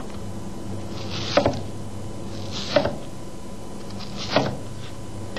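Kitchen knife slicing through a whole unpeeled onion into thick rounds on a cutting board: three cuts about a second and a half apart, each a crisp crunch through the onion ending in a knock of the blade on the board.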